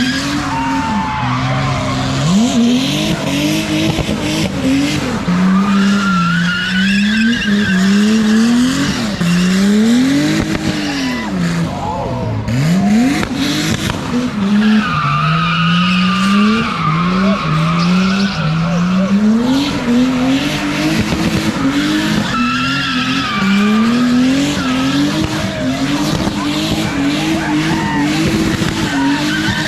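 Drift car doing donuts: the engine is revved hard, its pitch climbing and dropping over and over, while the tyres squeal in long wavering screeches.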